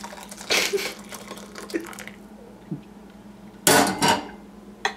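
Hot water poured from a saucepan into a ceramic bowl, splashing in bursts over the first two seconds and then trailing off. A loud short bump about three and a half seconds in.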